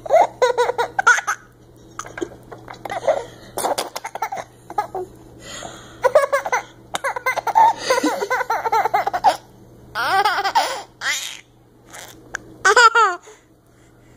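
Baby laughing in repeated short bursts with pauses between, including a couple of high, gliding squeals in the second half.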